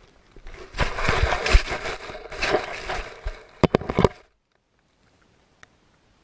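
A beagle mouthing and chewing on a GoPro camera, its teeth and jaws scraping and rustling against the housing close on the microphone, with a few sharp clicks; the sound cuts off abruptly about four seconds in, leaving near silence.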